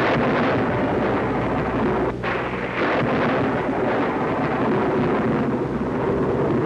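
Steady roar of a PBY Catalina flying through rough weather: rushing wind noise over the low drone of its engines, with a brief dip about two seconds in.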